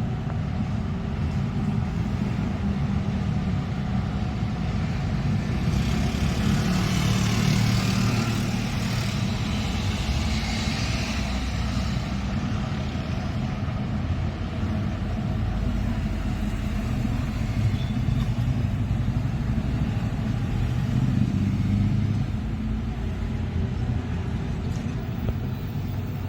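Container freight train rolling past: a steady, heavy low rumble, with a louder hiss from the wheels and track for several seconds in the middle.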